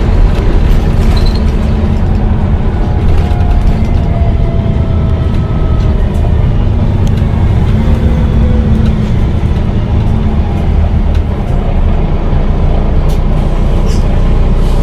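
Volvo B9TL double-decker bus running steadily, a loud low diesel drone with a faint gliding whine over it.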